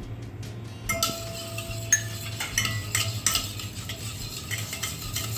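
Wire whisk beating yogurt and oil in a stainless steel bowl, the wires scraping and clicking fast against the metal, starting about a second in, with the bowl ringing briefly.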